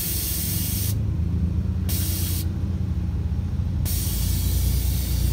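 Air-suspension valves on a lowered Toyota Vios venting air in three loud hissing bursts as the car drops lower, over a steady low hum. One burst ends about a second in, a short one comes about two seconds in, and a longer one starts about four seconds in.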